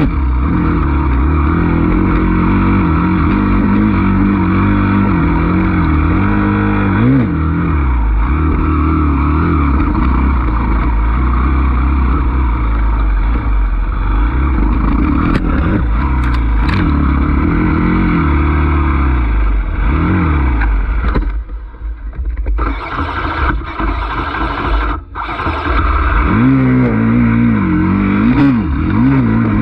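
Enduro dirt bike engine running under load on a woods trail, its pitch rising and falling as the throttle is opened and closed. About two-thirds of the way through it drops back and goes quieter for a few seconds, then revs up again.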